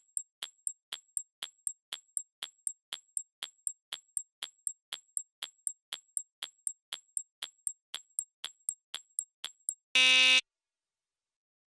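Countdown-timer sound effect: rapid clock-like ticking, about four and a half ticks a second, for about ten seconds. It is followed by a short buzzer blast signalling that time is up.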